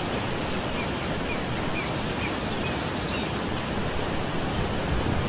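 Waterfall and white-water rapids rushing, a steady, even noise of heavy water.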